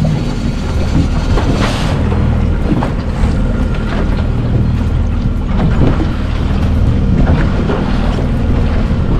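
Wind buffeting the microphone over choppy water lapping against an aluminium boat hull, with a low steady hum of the boat's outboard motor underneath.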